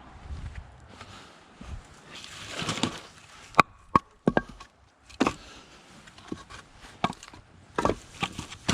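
Split hardwood firewood pieces knocking together as they are set onto a stack: a string of irregular sharp wooden clacks, the loudest a few seconds in, with a stretch of scraping and shuffling before them.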